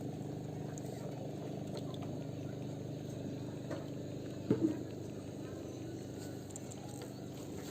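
A steady machine hum, like a small motor running continuously, with two brief knocks about four and a half seconds in.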